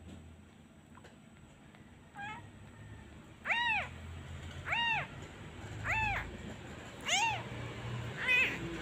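Newborn kitten mewing: a faint cry about two seconds in, then five loud cries about one a second, each rising then falling in pitch. These are the distress cries of an orphaned kitten left alone without its mother.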